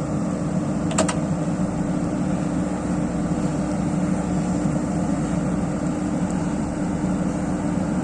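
Excavator's diesel engine running steadily with a constant low drone, and a single sharp click about a second in.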